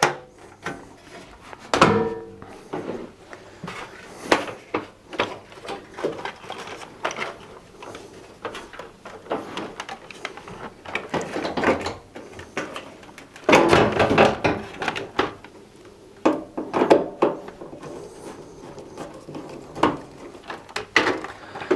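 Washing machine front panel being fitted back on: scattered knocks, clicks and clatters of the panel and fittings being handled and screwed in, with busier bursts about two seconds in and again past the middle.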